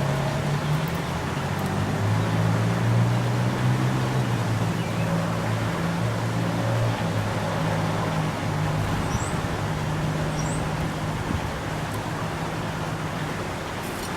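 Steady road traffic noise with the low hum of passing vehicle engines swelling and fading, and a few faint, short, high bird chirps about two thirds of the way through.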